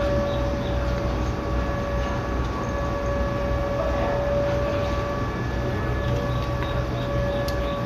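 Electric train standing at the platform with its equipment running: a steady whine over a low, pulsing rumble.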